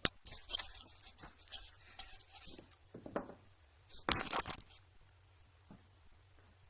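Workshop handling noises: a run of irregular clicks and knocks as tools and parts are handled, with a louder cluster of knocks about four seconds in.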